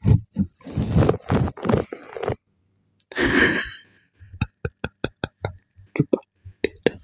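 Close-miked mumbling for a couple of seconds, a short breathy laugh, then a quick run of short, sharp clicks right at the microphone, about five a second.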